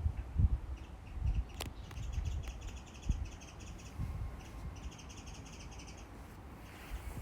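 A small bird calling in two runs of rapid, harsh repeated notes, each about a second long, over low thumps of wind on the microphone.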